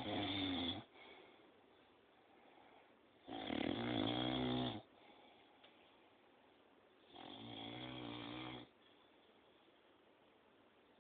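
A sleeping elderly man snoring loudly: three snores, each about a second and a half long and spaced roughly four seconds apart, with quiet breathing gaps between them. The last snore is softer than the first two.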